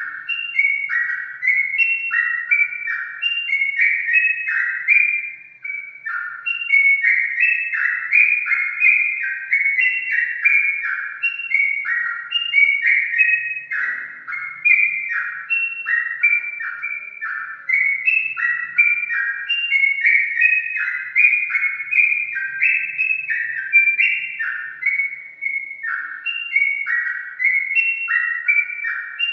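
Sooty-headed bulbul (trucukan) singing a steady run of short, liquid whistled notes, two or three a second, with a brief pause about five seconds in and again near the end.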